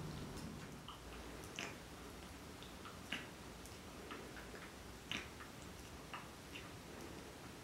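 Faint, irregular little clicks and licking sounds as a Persian mother cat grooms her kitten's head. A few slightly sharper clicks stand out about one and a half, three and five seconds in.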